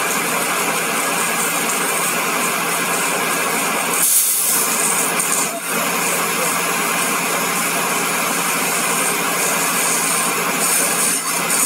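An engine idling under a steady, loud hiss, with a brief louder burst of hiss about four seconds in.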